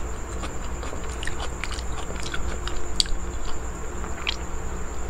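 Close-miked chewing and biting of a person eating, with scattered light clicks, the sharpest about three seconds in and another just after four seconds.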